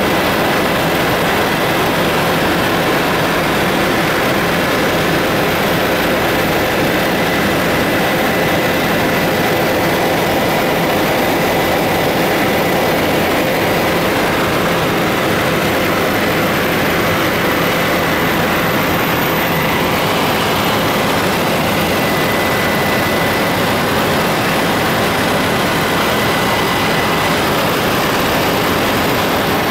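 Helicopter in flight, heard from inside the cabin: the engine and rotor make a steady, loud, unchanging noise, with a faint high steady whine in it.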